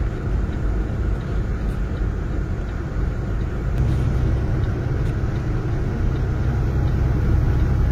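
Steady road and engine rumble of a vehicle driving on the highway, heard from inside it; the low rumble grows heavier about four seconds in.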